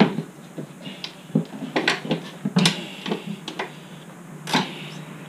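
Irregular metallic clinks and clicks of a hand wrench working a bolt and lock nut on an ATV's underside frame, over a steady low hum.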